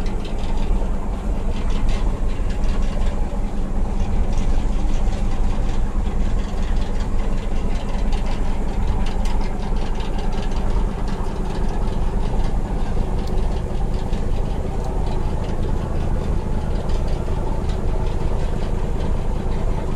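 Passenger ship's engine running steadily: a loud, even low drone heard on board.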